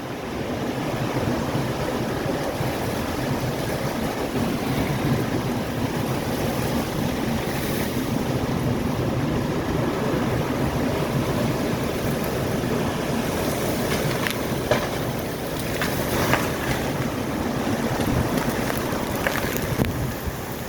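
Tornado-force wind blowing hard and buffeting the microphone, with a few sharp cracks or knocks in the second half.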